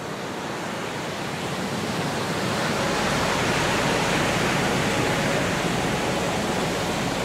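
A steady rushing noise, much like surf, fades in and holds even. Faint sustained musical notes begin to show through it near the end as the music track starts.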